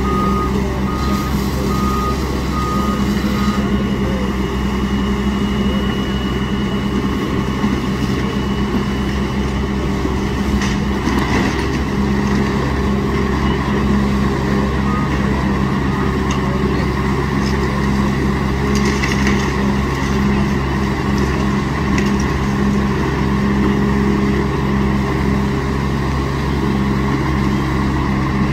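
Heavy diesel machinery running steadily in a loud, low drone. A backup alarm beeps about five times in the first few seconds.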